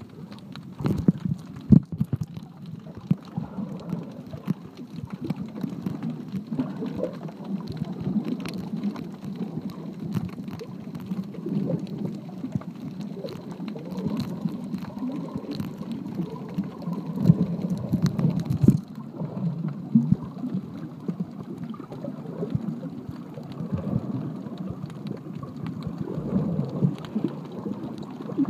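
Underwater water noise at a submerged camera: a low churning and bubbling, with many small clicks and crackles scattered throughout.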